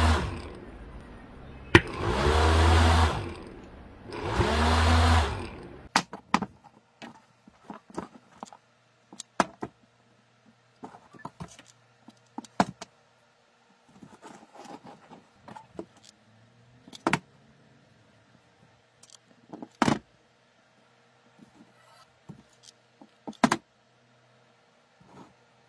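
Three loud whooshing swells, each rising and falling in pitch, fill the first six seconds. Then come scattered sharp clicks and taps of small parts being handled and set down on a wooden workpiece, with a hot glue gun in use.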